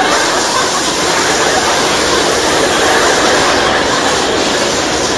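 Water gushing from a bath tap into the tub, a steady rush.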